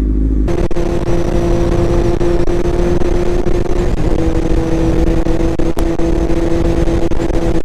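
Sport motorcycle engine running at a steady cruising speed, a constant engine note under heavy wind rush on the camera microphone.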